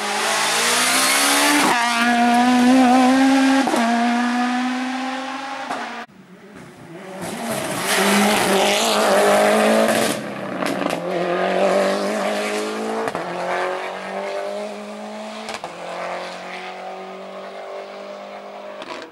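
Rally car engines at full throttle on a stage, revving hard with their pitch climbing and then dropping at each quick gearshift. The sound cuts sharply about six seconds in and again near ten seconds as one car follows another.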